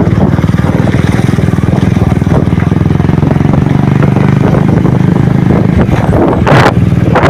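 Motorcycle engine running steadily at a constant speed, loud and close, with a brief rush of noise about six and a half seconds in.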